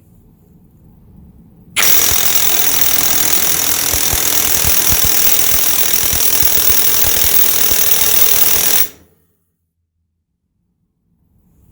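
Ridgid Octane brushless cordless impact wrench hammering steadily for about seven seconds, then stopping abruptly.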